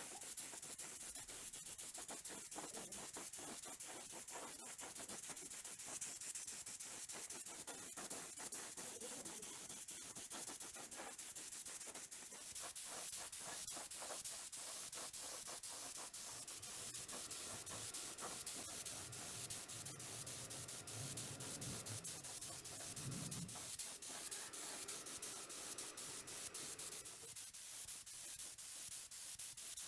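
Hand sanding: quick, repeated rubbing strokes of abrasive on a part, fairly faint and continuous.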